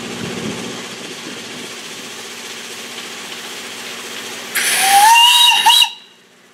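Miniature railway steam locomotive's whistle blown once for just over a second, its pitch rising as the valve opens, with a rush of steam hiss. Beforehand there is a steady rumble of a locomotive running. The whistle and steam cut off suddenly near the end.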